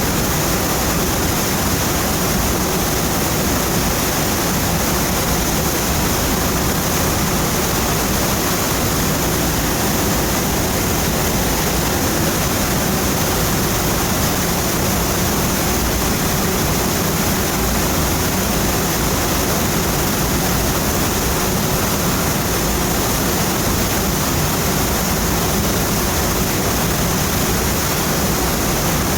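Waterfall pouring in a steady, unbroken rush of water.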